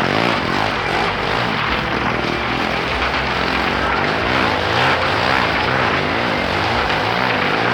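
Motorcycle engine running hard as it circles inside a wooden wall-of-death drum, its pitch swinging up and down again and again as it laps.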